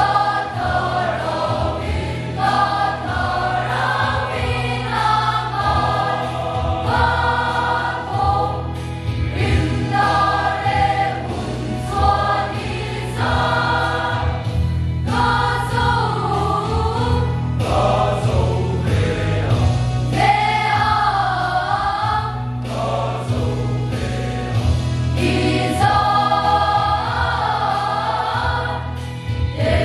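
A large mixed choir of women and men singing a hymn in Mizo, in several parts, with held notes that swell and waver and no break in the singing.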